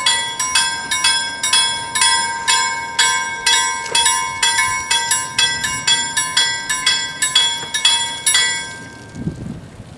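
Two level-crossing warning bells ringing in quick, even strokes while the crossing's barriers come down, stopping about eight and a half seconds in once the barriers are down. A low rumble follows near the end.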